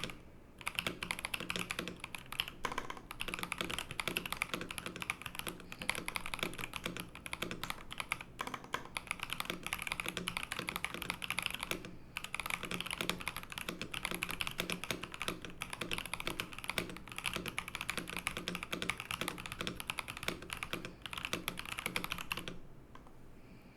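Darmoshark Top75 mechanical keyboard being typed on in fast, continuous keystrokes, with short pauses about half a second in and about halfway through. The typing stops about a second before the end.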